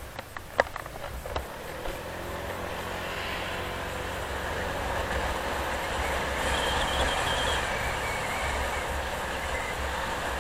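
Steady rushing of tyre and wind noise while riding along a road, with wind rumbling on the microphone. A few sharp knocks come right at the start, and a faint high squeal is heard about six to seven and a half seconds in.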